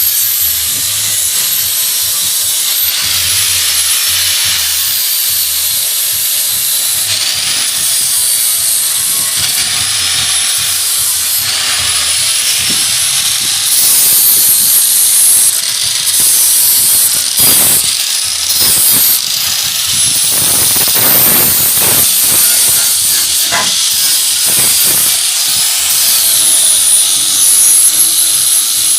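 Power tool working wood, a loud high hiss whose pitch dips and recovers every second or two as it is pushed.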